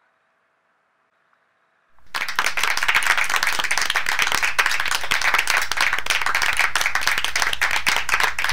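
Audience applause that starts suddenly about two seconds in, after near silence: a dense, steady clatter of many hands clapping.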